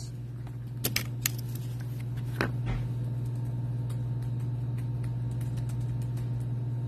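A steady low hum, with a few light clicks and taps in the first three seconds as small objects are handled on a table.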